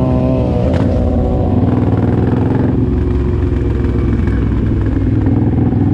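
Suzuki Boulevard M109R's V-twin engine running steadily under way, a low even drone. There is a single click about a second in.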